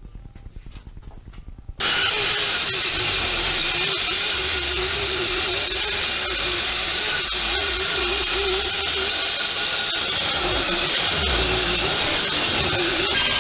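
Power tool motor running steadily with a high whine, starting abruptly about two seconds in after a few faint ticks.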